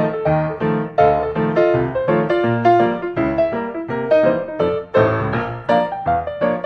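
Background piano music: a light, quick run of plucky notes at a steady pace.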